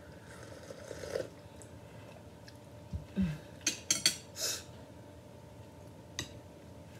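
A sip from a ceramic coffee mug, then a knock as the mug is set down on the table. A quick run of sharp clinks and scrapes of tableware follows, and a single fork click against a ceramic plate near the end.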